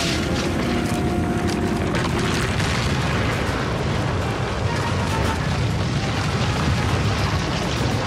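A continuous heavy rumble with booms, mixed with dramatic background music.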